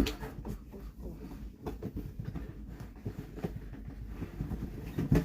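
Unboxing handling: the heavy box set down with a knock, then scattered taps, clicks and rustling of cardboard and packaging, with a few louder knocks near the end.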